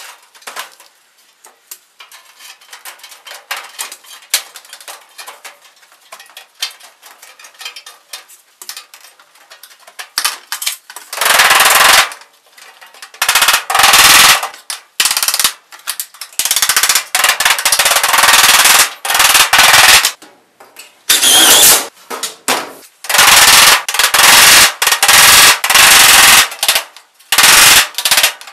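A hammer striking a galvanized sheet-metal plenum panel, closing its seams, sped up by fast-forward playback so the blows come in rapid, machine-gun-like runs. Light rattling and handling of the sheet metal comes first; after about eleven seconds the hammering takes over, in dense loud clusters with short gaps.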